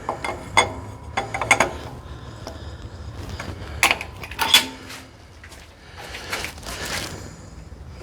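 Scattered metallic clinks and knocks as an electric motor hanging from an engine hoist is lowered and worked into line with the transmission, with two sharper knocks near the middle.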